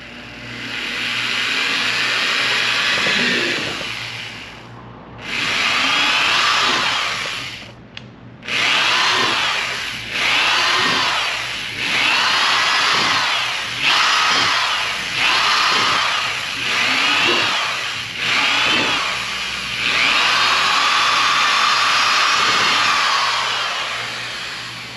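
Large corded electric drill boring a row of pilot holes through a polyethylene kayak deck. It runs in about ten separate bursts, one per hole, and the motor whine rises and falls in pitch within each burst. There are short pauses between holes, and the first and last bursts are the longest.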